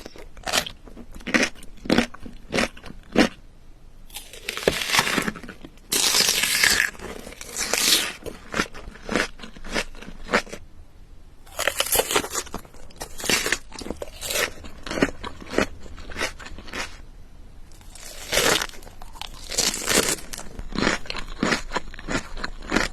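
Close-up chewing and crunching of food, many short sharp crunches in irregular clusters, with a few longer noisy stretches.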